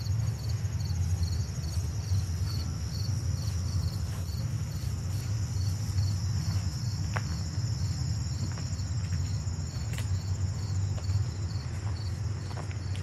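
Chorus of insects chirping: a pulsing chirp about three times a second over a steady high buzz, with a steady low rumble underneath and a few faint clicks.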